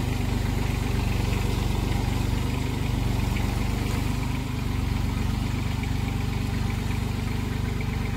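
A compact tractor's engine runs steadily under load, driving a 30-plate rotavator that is tilling soil.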